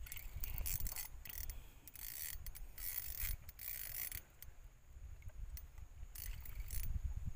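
Fishing reel ratcheting and buzzing in several short bursts while a fish pulls on the bent rod, with a low rumble underneath.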